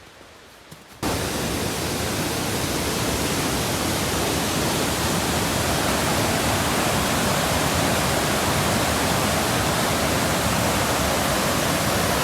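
Rushing stream water: a loud, steady hiss that starts abruptly about a second in.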